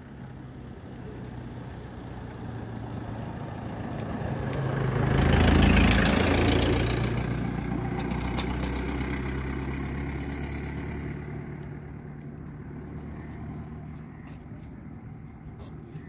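A motor vehicle passing by on the road: an engine hum with tyre noise that swells to its loudest about six seconds in, then fades away over the next five seconds.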